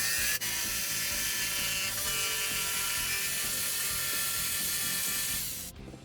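An electric power tool runs steadily as it cuts a too-long cabinet door board down to size. It dips briefly about half a second in and stops shortly before the end.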